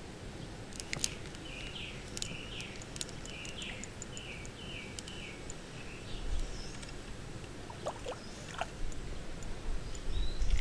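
A small songbird singing a run of about eight short, falling notes, roughly two a second, with sharp ticks scattered through. In the last seconds low rumbling handling noise comes in as the float rig is pulled up out of the water.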